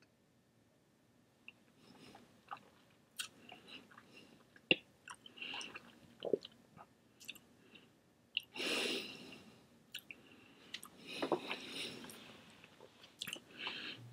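Quiet mouth noises of a man tasting whisky: a sip, then small wet clicks and lip smacks as the spirit is worked around the mouth, with a couple of breathy exhales, the longest about eight and a half seconds in.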